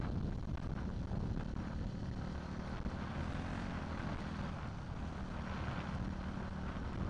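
Motocross dirt bike engines running out on the track, a steady engine drone mixed with wind rumble on the microphone.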